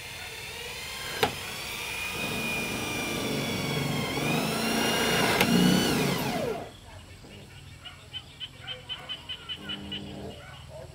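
Power drill working on the corrugated iron roof sheet. Its motor whine rises in pitch as it spins up and runs under load for several seconds, with a sharp click twice. Then the pitch falls and it stops about six and a half seconds in. A quick run of light ticks follows.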